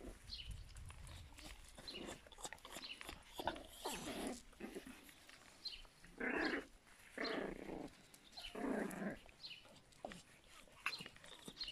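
Yorkshire terrier puppies play-fighting, with small high yips and scuffling, and three longer growls a little past the middle.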